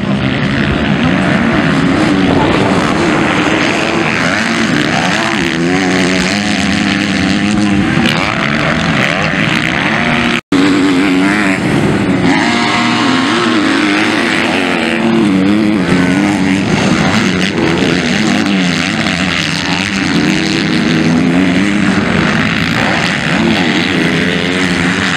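Several MX2-class motocross motorcycles racing, their engines revving up and down through the gears so the pitch keeps rising and falling as they pass. The sound breaks off for a moment about ten seconds in.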